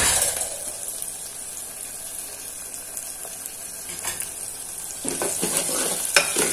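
Chopped onion frying with tempering spices in hot oil in a pressure cooker, sizzling steadily. A metal spoon clinks against the pot at the start and scrapes it a few times in the second half as the onion is stirred.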